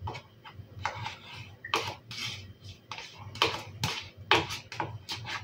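A plastic spatula scraping crème fraîche out of a plastic tub into a ceramic bowl: a run of short, uneven scrapes and light knocks, several a second.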